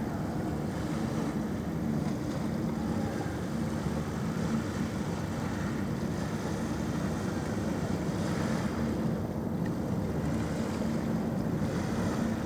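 A passing ferry's engines droning steadily: a low, even hum with a faint constant pitch over a wash of noise.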